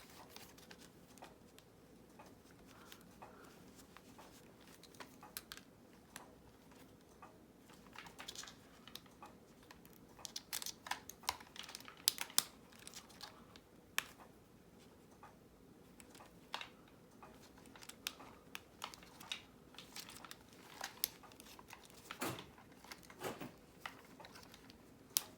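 Faint, scattered clicks and rustling as plastic clips and the fabric fur skin are worked loose from a Squawkers McCaw animatronic toy parrot's plastic shell.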